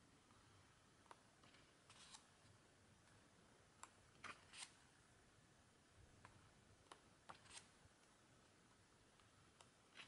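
Faint paper sounds from a photo book's pages being turned by hand: a few short rustles and soft clicks scattered across near-silent room tone.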